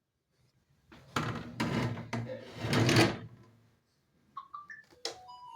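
A scraping clatter lasting about two seconds, then a few faint short chirps from a parrot near the end.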